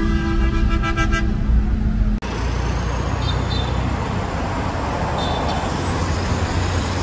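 A steady multi-pitched tone for about two seconds, cutting off abruptly. Then street traffic: city buses and cars running in slow traffic, with a steady low engine rumble and a couple of short high beeps.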